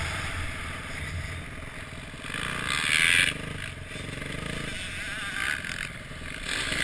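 Dirt bike engine running at low speed, with wind noise on the bike-mounted camera's microphone and two louder rushes of noise about three and five and a half seconds in.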